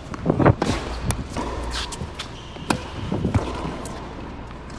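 Tennis ball being bounced and struck, heard as several sharp knocks at uneven intervals, with the loudest cluster about half a second in.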